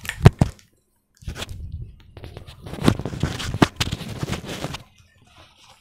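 Packaging being handled, rustling and crinkling, with a few sharp clicks at the start and a longer crackling stretch after about a second.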